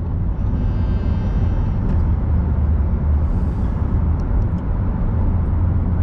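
Steady low rumble of road and engine noise from a car driving on an expressway, heard from inside the cabin.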